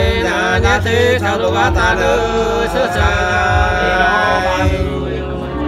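Two men singing sli, the Nùng people's unaccompanied antiphonal folk song, together in long held notes that waver and bend in pitch.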